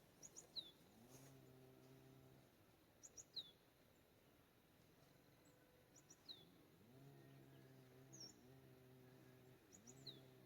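Faint bird calls: a short high chirp, falling in pitch, repeated about every three seconds. Between them a low pitched hum comes and goes in stretches of about a second.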